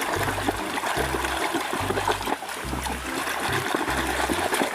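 River water splashing and trickling as a muddy toy is rinsed in it by hand, a steady rush with small splashes.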